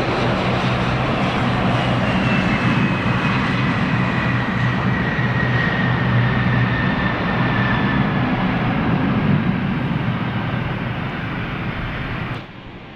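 Airliner's jet engines running loud and close, with a whine that slowly falls in pitch as it passes. The sound cuts off abruptly near the end.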